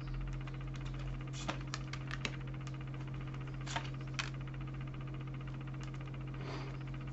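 Tarot cards being handled on a table: a few light, separate clicks and taps, mostly in the first half, over a steady low hum.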